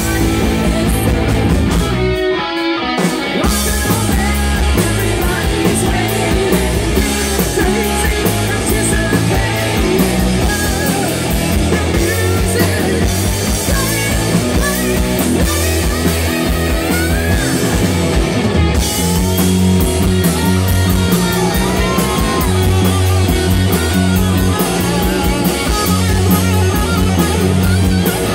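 Live rock band playing loud, with electric guitars, bass guitar and drum kit and a woman singing. The drums and bass stop briefly about two seconds in.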